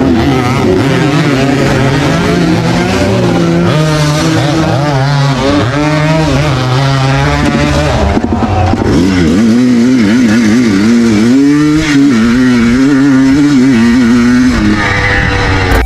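Racing motorcycle engines running hard, several at once, their pitch rising and falling with the throttle and gear changes.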